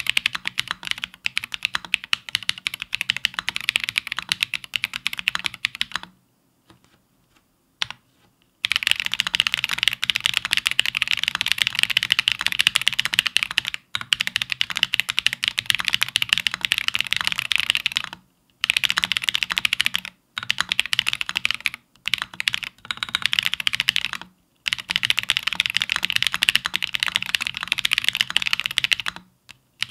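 Fast, continuous typing on a Bear65 custom mechanical keyboard with Holy Panda tactile switches and SA-profile Godspeed keycaps, a dense run of key clacks. It stops for about two and a half seconds some six seconds in, and breaks off briefly a few more times.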